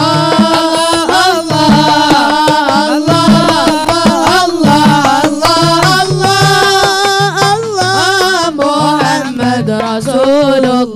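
Hajir marawis music: marawis hand drums beating a steady rhythm under a sung qasidah melody.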